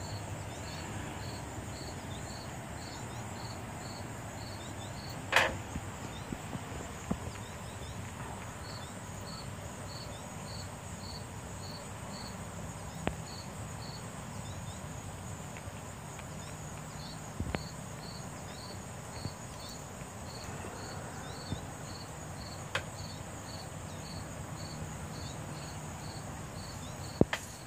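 A cricket chirping steadily in the grass, about three short high chirps a second with a few brief pauses, over a faint steady high insect hiss. A single sharp knock stands out about five seconds in, with a few fainter clicks later.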